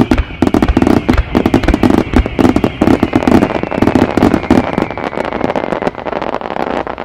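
Starmine fireworks firing in rapid succession: a dense, unbroken barrage of sharp bangs and crackling bursts, several a second. Through the first five seconds a high whistling tone slides slowly downward.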